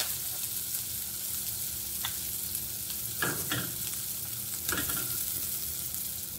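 Butter sizzling as it melts in a hot stainless steel saucepan, a steady hiss, with a few short clicks as more butter is added from a measuring spoon, about two to five seconds in.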